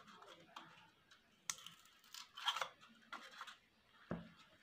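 Scissors snipping through a thermocol (polystyrene foam) plate: a few short, separate cuts, with a soft knock near the end.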